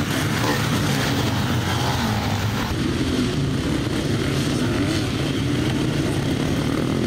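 A pack of enduro motorcycles racing together at full throttle, many engines blending into one loud, dense, steady sound that changes abruptly about three seconds in.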